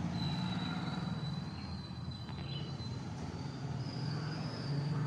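A low, steady mechanical drone from an unseen engine or motor, with a faint thin high-pitched tone held above it.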